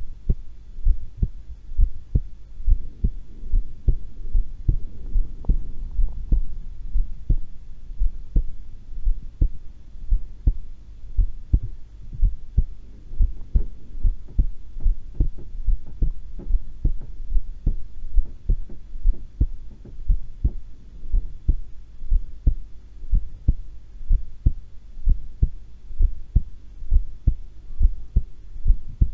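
A woman's heartbeat at rest, a steady lub-dub of paired low thumps at a little over one beat a second.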